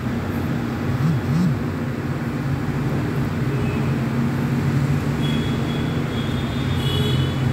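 Cauliflower, potato and soya chunks frying in a kadai, stirred and tossed with a metal spatula, over the steady rumble of a gas burner.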